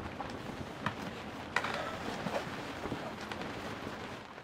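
Rain falling on a sailboat's canvas enclosure and windows: a steady hiss with scattered sharp drop hits, heard from inside the enclosure.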